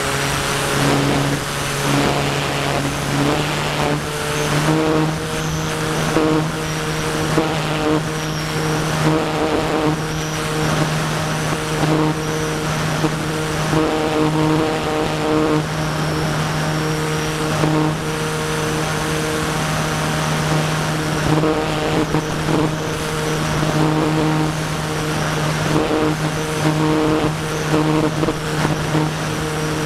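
The Parkzone Radian's brushless electric motor (Firepower 10, 3635) and propeller running under power: a steady drone with a faint high whine that comes and goes, its pitch stepping up about three seconds in. Wind rushes over the onboard camera's microphone.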